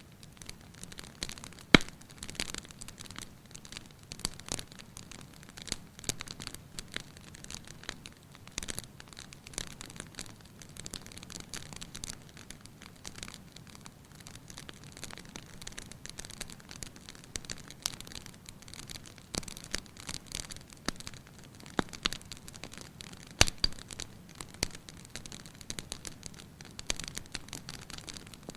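Fire in a fireplace crackling, with a steady stream of small snaps and a few sharper, louder pops: one about two seconds in and another about three quarters of the way through.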